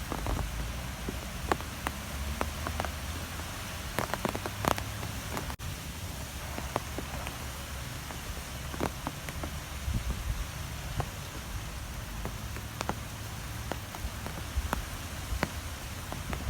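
Strong wind blowing steadily with a low rumble. Scattered sharp ticks and taps sound through it, like drops or small debris striking a surface.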